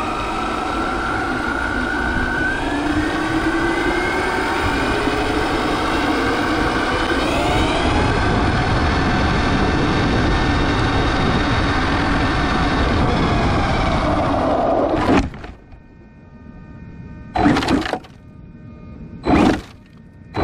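Arrma Mojave brushless RC truck driving fast, heard from a camera mounted on its side: a loud rush of tyre and wind noise with the electric motor's whine rising in pitch as it speeds up. About 15 seconds in the noise cuts off suddenly, and three short bursts of noise follow near the end.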